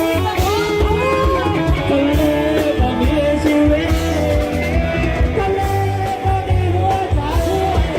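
Live Thai rot hae sound-truck band playing: an amplified electric guitar or vocal melody over a heavy, steady bass and drum beat, with singing.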